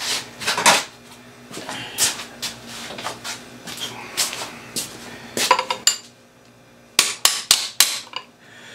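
Metal tools knocking and clinking, then a quick run of four sharp taps near the end. The taps are a hammer striking a wrench set over the rim of the drive-shaft top seal, driving the seal down into place on an outboard lower unit.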